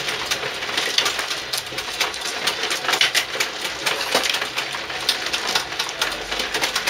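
Mahjong tiles clicking and clacking as they are drawn from the walls, knocked together and set down on the table, in a dense, irregular run of sharp clicks.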